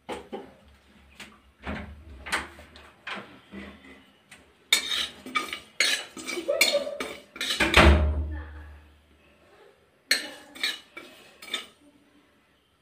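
Metal spatula scraping and knocking against an aluminium kadai as it stirs whole cumin seeds dry-roasting, in irregular strokes that come thickest in the middle, with a last few strokes near the end.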